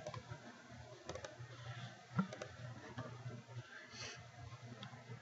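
Faint, scattered clicks and light knocks of a computer mouse being clicked and dragged, the sharpest a little over two seconds in, over a low steady hum.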